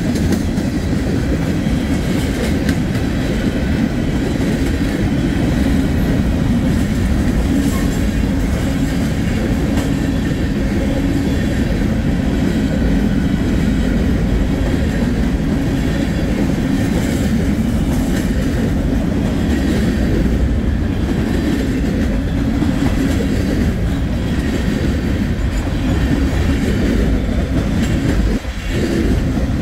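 Norfolk Southern manifest freight train rolling past: a steady, loud rumble of wheels on rail with faint clicks over it, dipping briefly near the end.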